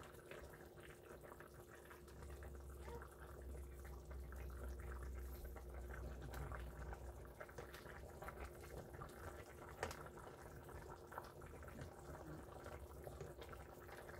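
A pot of fish broth simmering faintly, with scattered light clicks as a ladle is stirred through it, over a steady low hum.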